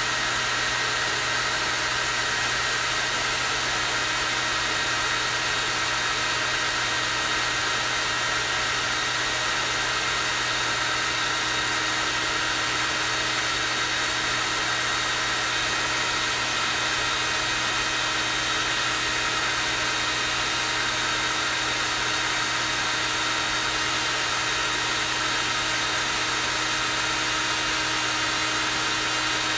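Hair dryer running steadily on its high (strong-air) setting: an even rush of blown air with a steady high-pitched motor whine, unchanging throughout.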